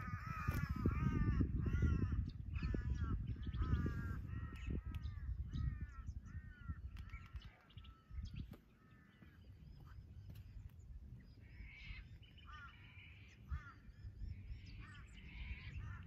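A bird calling over and over in short arched calls, about two a second, fading out halfway through, then a few more calls near the end. Low wind rumble on the microphone, strongest in the first half.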